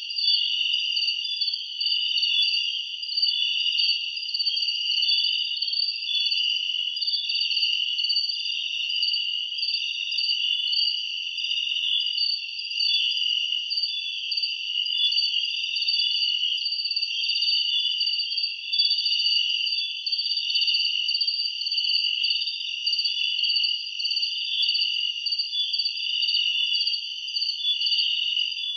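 A steady chorus of night insects trilling at several high pitches at once, the lowest of them pulsing gently.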